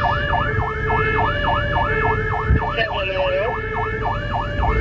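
Fire engine siren sounding a fast yelp, sweeping down and back up about three times a second over a low engine rumble. A steady higher tone runs beside it and a lower tone pulses on and off. A short thump comes about two and a half seconds in.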